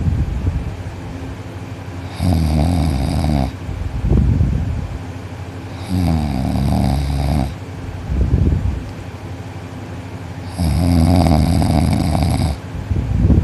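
A teenage boy snoring loudly in his sleep, lying on his back with his mouth closed. Three long buzzing snores come about every four seconds, each followed by a shorter, noisier breath.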